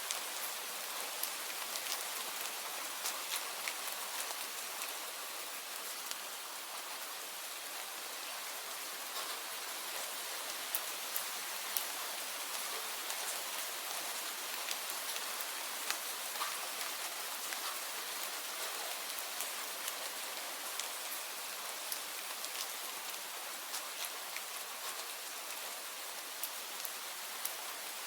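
Steady rain falling, an even hiss with the sharp ticks of single drops landing close by scattered through it.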